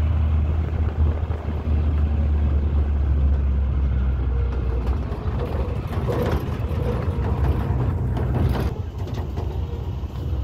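Pickup truck driving along a mountain road, heard from on board: its engine runs steadily with a low hum and road noise, and a few knocks come around the middle.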